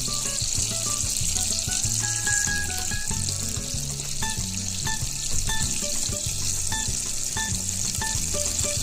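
Small prawns sizzling as they fry in hot oil, a steady crackling hiss. Background music with short melodic notes plays over it.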